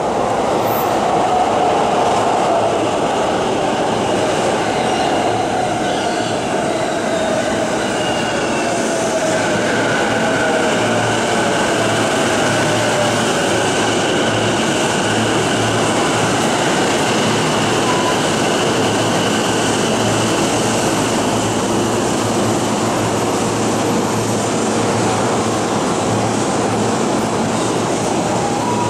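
JR East E233-series electric train pulling into the platform: its motor whine falls in pitch as it brakes over roughly the first dozen seconds, over loud steady rolling noise, then the sound settles into steady train and station noise as it stands.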